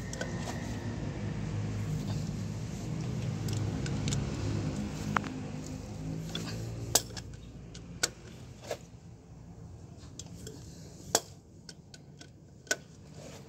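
Metal clinks of a long socket wrench against the axle-shaft flange bolts of a truck's rear wheel hub as the bolts are undone: about six sharp separate clinks, over a steady low hum that fades about halfway through.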